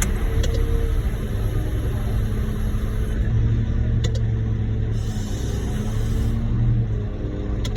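Heavy diesel engine running steadily as concrete is loaded from a mixer truck into a skid steer bucket, with three short clicks.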